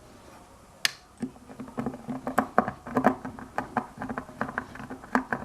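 A sharp click about a second in, then a run of quick, irregular small clicks and taps: screws being driven by hand to fasten a balance board's frame to its plastic top shell.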